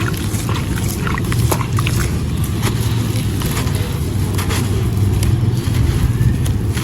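Wet, gritty sand-cement stone chunks crumbling in water: a dense, low, continuous crunch with scattered small crackles throughout.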